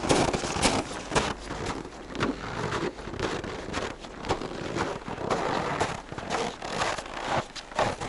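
Footsteps crunching on hard, wind-packed snow at a walking pace, about two steps a second.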